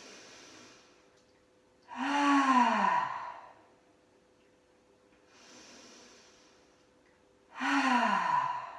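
A woman breathing in deeply and then letting the breath out in a loud, voiced sigh that falls in pitch, twice. These are relaxation breaths that release tension after a strenuous yoga set.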